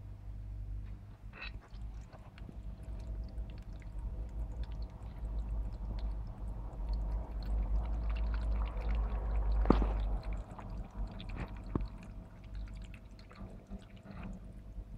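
A cat drinking from an electric pet water fountain: water trickling and splashing, with small lapping ticks. The splashing grows louder toward the middle, and a sharp click comes just under ten seconds in.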